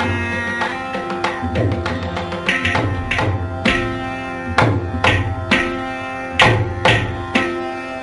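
Carnatic instrumental music: plucked veena notes over a steady drone, with hand-drum strokes.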